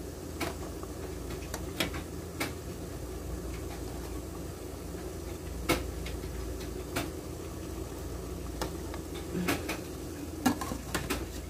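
Small plastic puto molds clicking and tapping against an aluminium steamer tray as they are set down and shifted into place, a dozen or so sharp ticks scattered irregularly, over the steady low sound of the water boiling underneath.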